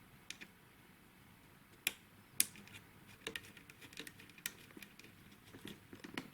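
Sharp clicks and taps, with a run of small irregular ticks in the second half, as small computer parts or their plastic packaging are handled.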